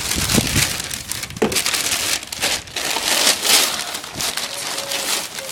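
Sheets of white packing paper rustling and crinkling in uneven bursts as hands dig through them.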